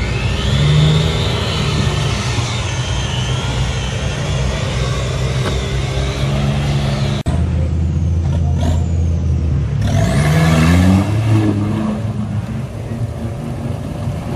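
Off-road 4x4 engine running hard under throttle, with a high whine above it. The sound breaks off abruptly about seven seconds in and resumes, and the engine revs up again around ten seconds in.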